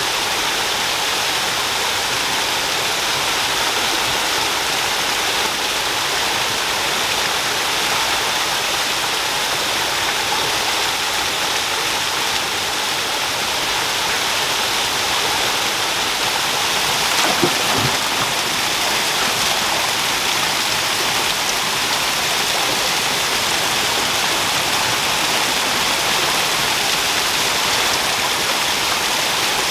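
Small forest waterfall cascading over rocks: a steady rushing and splashing of water. One brief dull thump sounds a little past halfway through.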